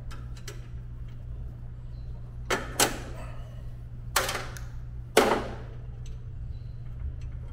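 Metal clinking and scraping as the deck mounting pins and hairpin clips are worked out of a riding mower's cutting-deck hanger brackets: three short noisy bursts, about two and a half, four and five seconds in, over a steady low hum.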